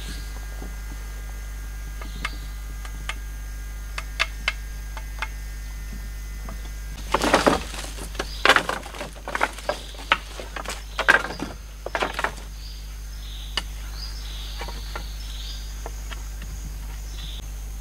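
Dry sticks snapping and clattering as they are broken and handled by hand: a few single cracks at first, then a dense run of loud snaps for about five seconds in the middle, then scattered ones. A faint steady insect drone sits underneath.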